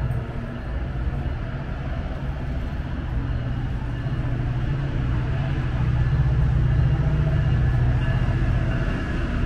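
Steady low rumble of a vehicle engine, growing louder about six seconds in before easing off near the end.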